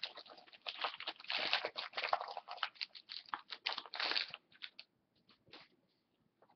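Foil hockey-card pack wrapper being torn open and crinkled in the hands: a dense crackling that thins to a few scattered crinkles after about four seconds.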